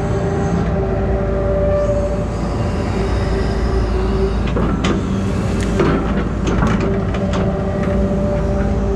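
Engine and hydraulics of a truck-mounted grapple saw crane running steadily with a constant hum, and a run of sharp cracks and snaps about halfway through.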